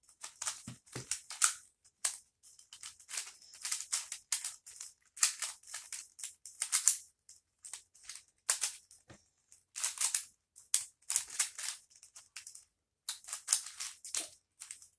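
Plastic 3x3 twist cube being turned by hand, in quick irregular runs of clicks and clacks, as it is scrambled before a solve.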